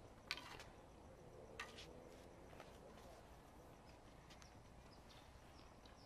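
Two sharp knocks of a tennis ball off a racquet and the court, a little over a second apart, the first louder, against faint outdoor quiet.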